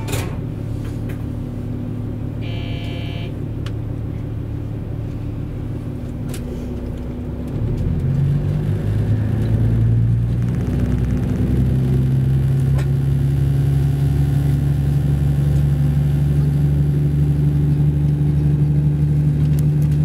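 KiHa 85 series diesel railcar's engine heard from on board, running low and then opening up in two steps, about seven and a half seconds in and again around eleven seconds in, as the train accelerates away from a station.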